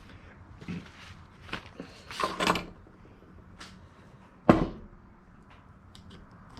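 Scattered clicks, scrapes and knocks of hydraulic-cylinder parts (the gland and its seals) being handled on a workbench, with one sharp knock about four and a half seconds in.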